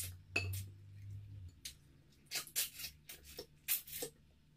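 Close-up mouth sounds of someone eating amala and stew with her fingers: an irregular string of short, wet smacks and clicks of lips and fingers.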